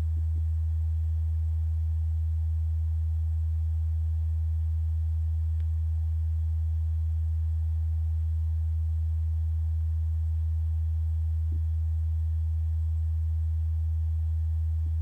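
A steady low-pitched hum, one unchanging tone, with a couple of faint small clicks near the end.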